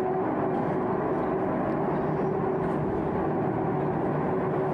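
Mobile-phone recording of an unexplained sound from the sky: a steady droning rumble with a constant held tone in it, likened to a fighter jet taking off or a helicopter flying over.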